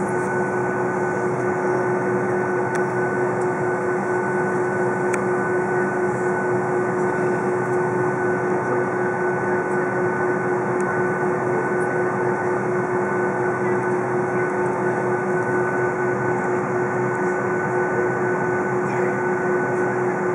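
Boeing 757's jet engines running steadily at low power during taxi, heard from inside the cabin: an even rush with a steady hum and whine.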